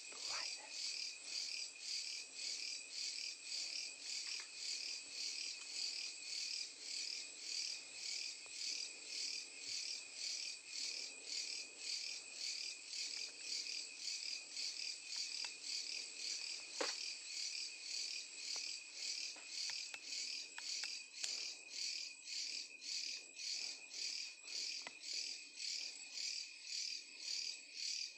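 Night insects, crickets, chirping in a steady, high-pitched pulsing chorus of about two pulses a second, with one faint click a little past halfway.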